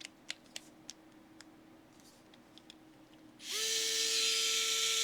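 A few light clicks as a bit is fitted into the chuck, then about three and a half seconds in the Vessel electric screwdriver starts and runs at a steady speed with an even whine, spinning the bit to show how much it wobbles in the chuck.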